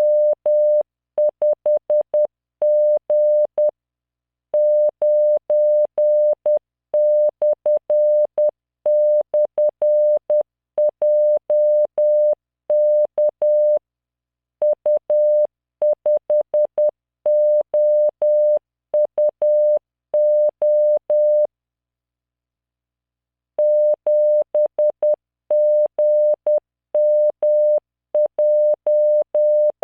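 Morse code sent at 10 words per minute as a single 600 Hz tone from Morse training software, keyed on and off in dots and dashes. The tone spells random five-character practice groups and pauses for about two seconds a little over two-thirds of the way through.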